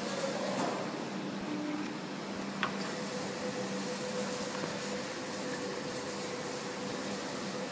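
Steady mechanical hum with a hiss, typical of an automatic pipe-cutting machine running between cuts, with one short click about two and a half seconds in.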